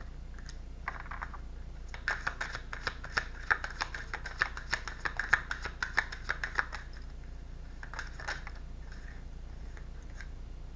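Tarot cards being shuffled by hand: a quick run of light card clicks and slaps, about five a second, lasting about five seconds, with a few more near the end, over a steady low hum.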